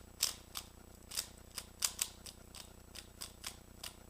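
Rubik's cube layers being turned by hand, each turn a sharp plastic clack, in an irregular run of about two to three clacks a second.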